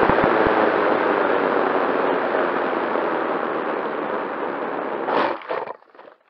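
Onboard sound of a ParkZone T-28 Trojan RC plane rolling out over grass after landing: a steady rushing of airflow and grass that slowly fades. A few brief rustling bumps follow near the end as the plane stops.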